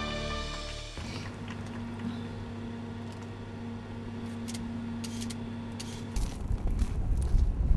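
Lift cabin in motion: a steady low hum with one faint held tone, broken by a few light clicks near the middle. About six seconds in, the hum gives way to a louder low rumble.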